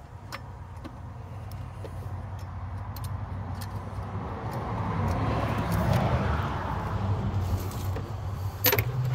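A road vehicle passing, its tyre and engine noise swelling gradually to a peak about six seconds in over a steady low rumble, with a sharp click near the end.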